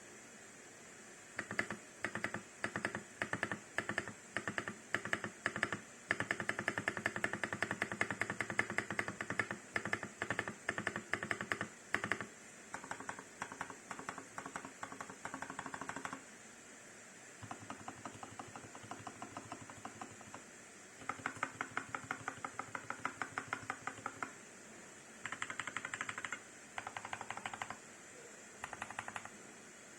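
Typing on a mechanical keyboard with tactile switches and cherry-profile keycaps: the first keystrokes come singly, then fast runs of clacks follow with short pauses between. Behind the typing is a steady hiss.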